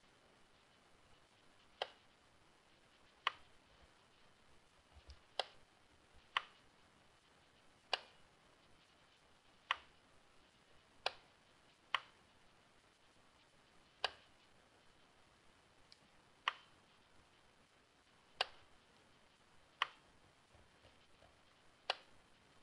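Computer mouse button clicking: about a dozen single sharp clicks at irregular gaps of one to two seconds, over a faint steady high whine.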